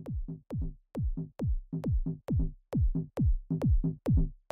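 Electronic dance music with a steady kick drum at about two beats a second and crisp hi-hat ticks, growing steadily louder.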